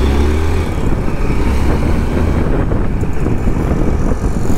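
Motorcycle engine running steadily while riding in traffic, with road noise.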